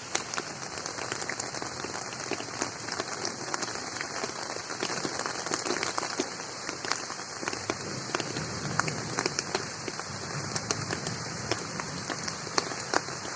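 Steady rain falling on a garden pond, a constant hiss with many separate close drop strikes.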